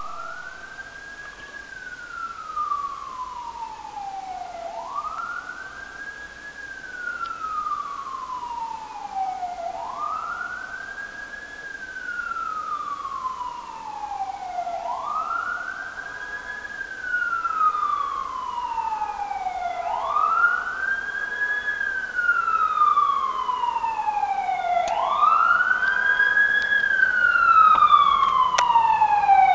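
Fire truck siren wailing in slow cycles, each a quick rise in pitch and a long fall, repeating about every five seconds and growing steadily louder as it approaches.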